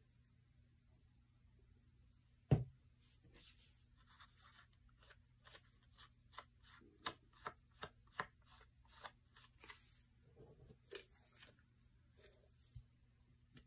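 Light clicks and handling noises of hands working a small bottle of gold paint and a paper palette on a cutting mat, with one sharper knock about two and a half seconds in.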